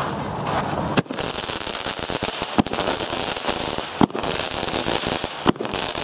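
Weco 'Feuersturm' small star battery firing, four sharp shots about a second and a half apart, with a steady hiss between them.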